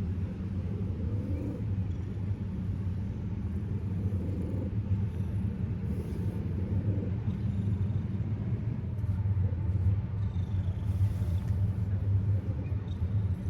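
Domestic cat purring close to the microphone: a steady low rumble, pulsing rapidly, that carries on without a break.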